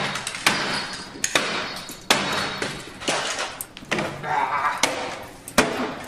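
A computer being smashed: a quick run of hard blows and crashes, about one every half second to second, some with a glassy rattle after the hit.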